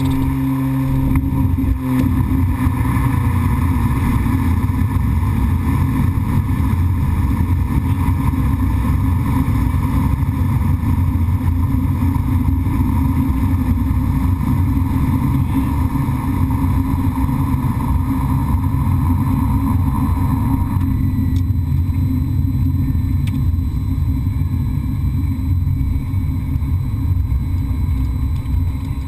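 King Air 100's twin turboprop engines and propellers running through the landing roll. About two seconds in, the steady propeller hum gives way to a louder, rougher low rumble. About 21 seconds in, the higher part of the sound drops away.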